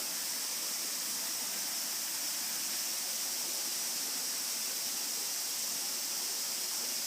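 A chorus of cicadas droning steadily, a continuous high-pitched hiss that does not change.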